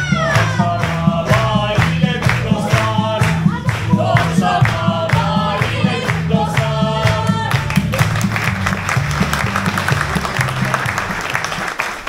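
A song with singing over a steady bass line plays, then about two-thirds of the way in an audience breaks into applause that takes over as the music fades near the end.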